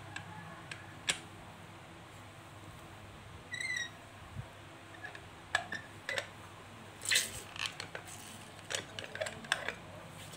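Scattered light clicks and knocks of a metal lever hand-press juicer and pineapple pieces being handled, coming thicker in the second half. A brief run of about five high squeaky chirps sounds about three and a half seconds in.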